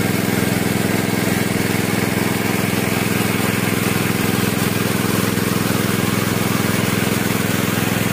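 A small engine running steadily at one constant speed, with water gushing and splashing onto a flooded field.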